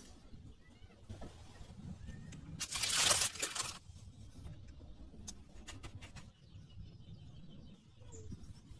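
Handling of adhesive bandages and gauze: faint rustling, with a louder rustle about a second long around three seconds in.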